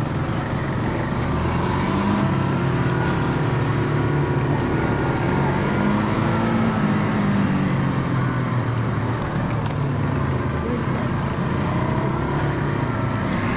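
ATV engine running steadily at low revs, its pitch swelling up and settling back a few times as the throttle is blipped.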